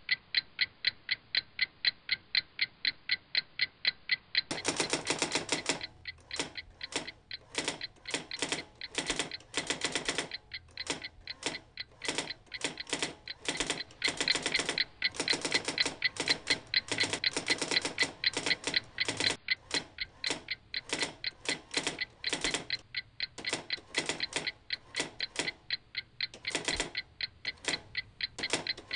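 A clock ticking quickly and evenly. About four and a half seconds in, the keys of a manual typewriter start clacking in quick, irregular runs with short pauses, louder than the ticking.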